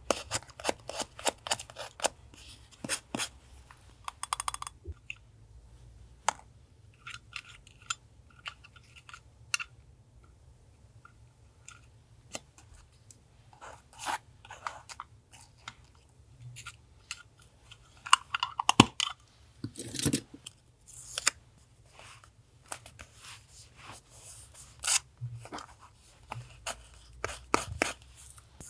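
Paper being cut with scissors and handled for a journal collage: a run of small snips, rustles and taps in quick, irregular clusters.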